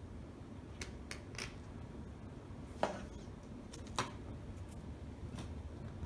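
Scattered small clicks and light scrapes of a metal key blank and hand tools being handled on a bench, with two sharper knocks about three and four seconds in.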